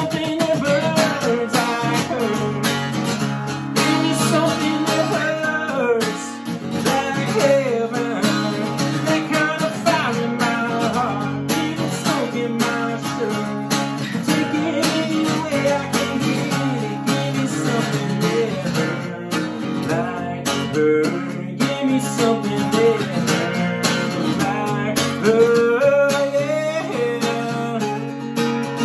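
Solo acoustic guitar playing an instrumental break between verses, strummed and picked chords with melody notes moving above them. It is in an alternate tuning with a capo at the first fret.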